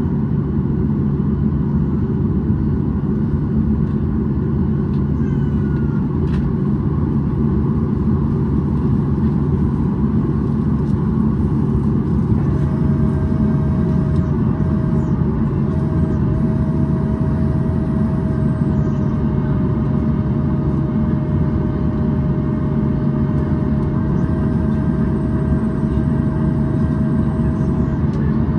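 Boeing 737-800 cabin noise while taxiing: the CFM56 engines give a steady low drone. A steady whine joins about twelve seconds in and holds to near the end.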